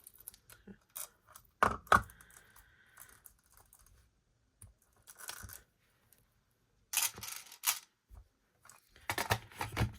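Album packaging being handled and put back together: bursts of plastic and card rustling, two sharp knocks a couple of seconds in followed by a brief squeak, and more rustling near the end.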